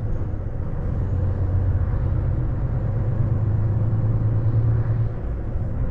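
Truck's diesel engine running, heard from inside the cab: a steady low drone over a rumble, easing slightly about five seconds in.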